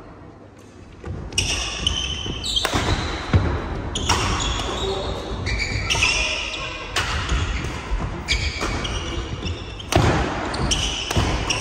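Badminton doubles rally: rackets strike the shuttlecock in a sharp crack about every one and a half seconds, starting about a second in, with short high squeaks of shoes on the wooden court floor between hits.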